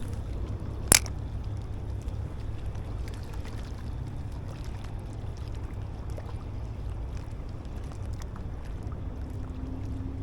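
Steady low rumble of moving river water and wind at the bank. One sharp click comes about a second in, and a few faint ticks follow.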